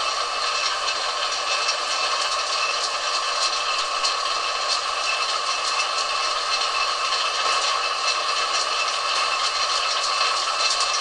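Harrison lathe running while a high-speed steel tool takes a light cut along a mild steel shaft: a steady machine noise with a strong steady note, dotted with many faint ticks.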